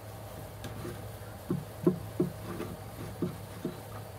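A hand saw being set into the slots of a wooden saw till: a run of about six light wooden knocks and clunks, starting about a second and a half in, as the saw bumps against the till. A steady low hum sits underneath.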